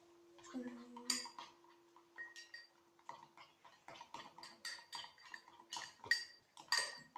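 Metal spoons clinking and scraping against drinking glasses in quick, irregular strokes while slime made of glue and borax is stirred.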